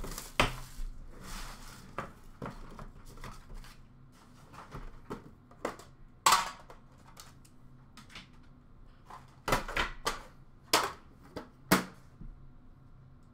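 Trading-card boxes and a metal tin being handled at a counter: a run of sharp clicks, taps and knocks, the loudest ones scattered through the second half, with some rustling near the start.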